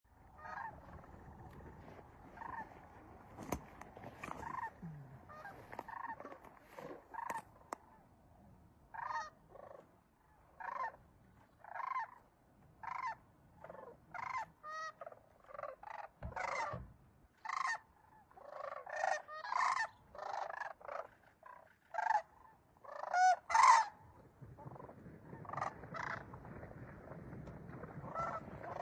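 Birds calling: a long run of short pitched calls, roughly one a second at first, then coming thicker and louder about three quarters of the way through.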